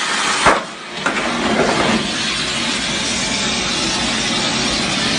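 Firework hissing steadily and loudly, with a sharp crack about half a second in and a couple of smaller cracks soon after.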